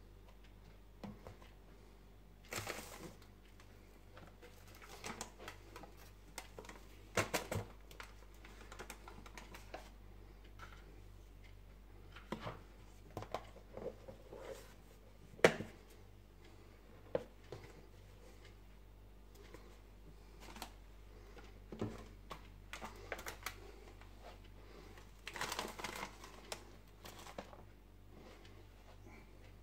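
Scattered clicks, taps and knocks of plastic food containers and their lids being handled and pressed shut on a kitchen counter, with one sharp click about halfway through. Short rustles between them, the longest near the end as a foil coffee bag is handled and set down.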